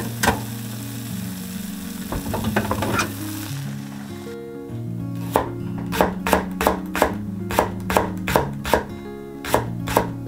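Melted cheese and fried tofu sizzling in a skillet for the first few seconds. Then, from about five seconds in, a kitchen knife slices Japanese long green onion into thin rounds on a wooden cutting board, with crisp chops at about three a second. Soft background music plays throughout.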